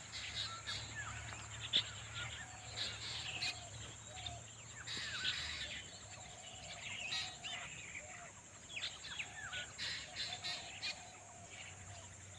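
Birds chirping and calling outdoors: many short chirps and whistles, scattered throughout, over a steady high-pitched hum.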